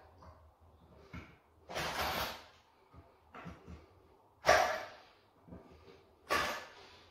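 Three short, breathy puffs of air from a person blowing, the middle one the loudest, with faint small knocks and rustles between.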